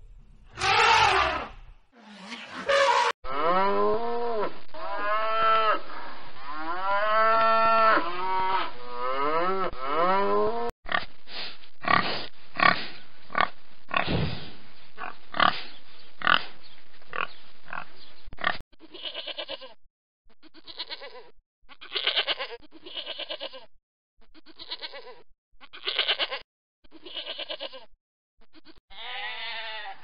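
An elephant trumpets briefly at the start. From about three seconds in, a pen of domestic pigs squeal and grunt: first repeated rising-and-falling squeals, then a dense run of grunts, then separate short grunts and oinks. Near the end, sheep begin bleating.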